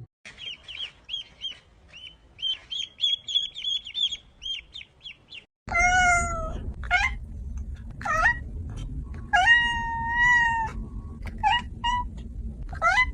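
A domestic cat meowing several times, including one long drawn-out meow in the middle. Before that comes a quick run of short, high-pitched chirps, several a second.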